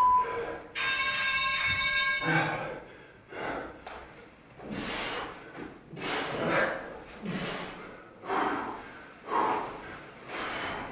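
Hard, regular breathing from two men straining through a body-climbing exercise, a breath about once a second. Near the start a short beep and then a steady tone lasting about a second and a half sound over it.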